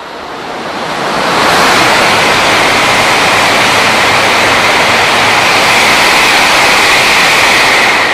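Shinkansen train passing at high speed beside the platform without stopping: a loud rush of air and wheel noise that builds over about a second and a half, then holds steady.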